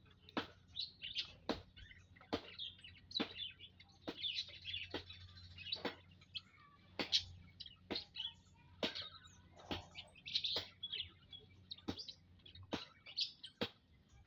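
Munias chirping in an aviary: many short, sharp calls or clicks, one to two a second at irregular intervals, with softer twittering in between.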